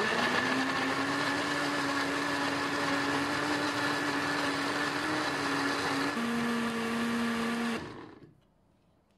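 Electric countertop blender puréeing chunks of mango. The motor starts abruptly and runs steadily, its pitch dipping a little about six seconds in. Near the end it is switched off and winds down.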